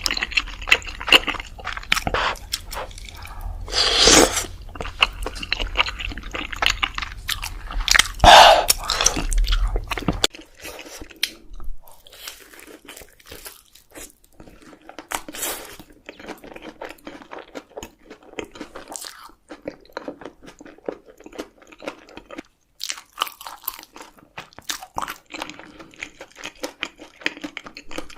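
Close-miked biting, crunching and chewing of chicken with cheese sauce, with wet mouth sounds. The crunching is louder for about the first ten seconds, then the chewing goes on more softly.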